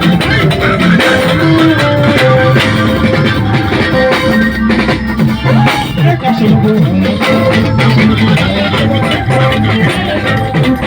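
Band music: plucked guitar lines over bass guitar and drums.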